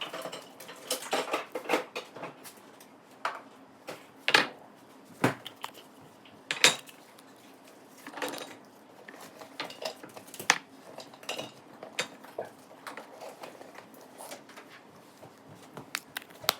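Slime being played with by hand in its small plastic tub: irregular sharp clicks, pops and squelches, with the plastic container knocking now and then.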